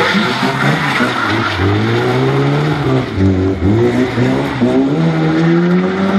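Lada 2105's four-cylinder engine revving hard, its pitch climbing, dropping sharply about three and a half seconds in, then climbing again and holding near the end.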